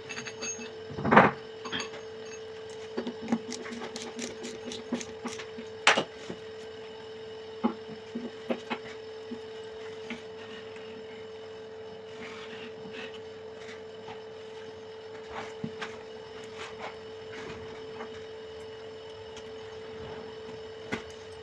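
Plumbing handwork on a toilet bidet fitting: scattered clicks and knocks of parts and tools, the loudest about a second in, with some rubbing, over a steady hum.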